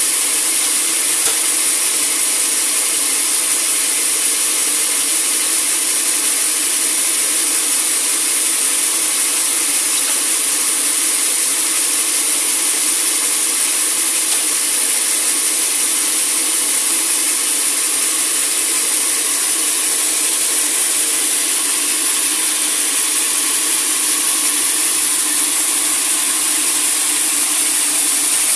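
Sawmill saw cutting through a giant teak log: a loud, steady, unbroken noise with a strong high hiss.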